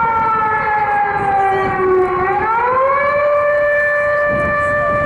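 P-47 Thunderbolt's 18-cylinder Pratt & Whitney R-2800 radial engine and propeller droning past in flight, a loud, steady pitched note. The pitch sinks slowly, then rises about two seconds in and holds level.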